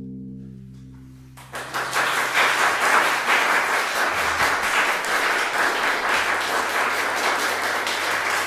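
The last chord of a solo cello rings on with the bow lifted off the strings and fades away. About a second and a half in, the audience breaks into steady applause.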